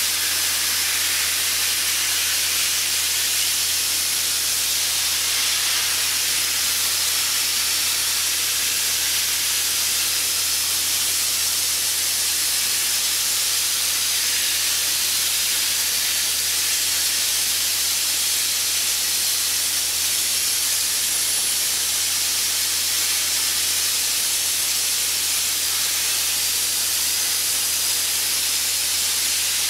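Abrasive media blasting nozzle stripping paint from a car body panel: a steady, loud hiss of compressed air and grit.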